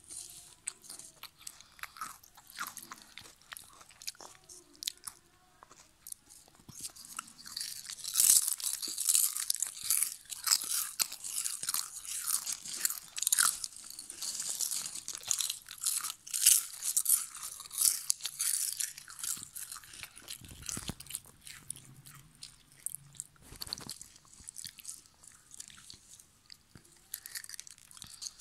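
Person biting and chewing Lay's potato chips with sharp, crisp crunches. The crunching is sparse at first, comes thick and loud through the middle, and thins out again near the end.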